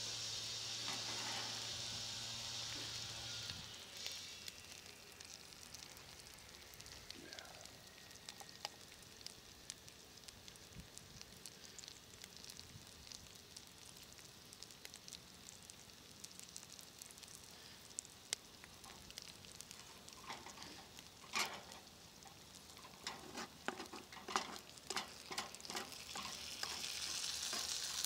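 Vegetables sizzling in a frying pan over a campfire, with a wooden spatula scraping and tapping against the pan. The sizzle is strongest in the first few seconds, then drops to a quieter hiss with scattered clicks. A quick run of scrapes and taps comes a few seconds before the end, and the sizzle grows again at the very end.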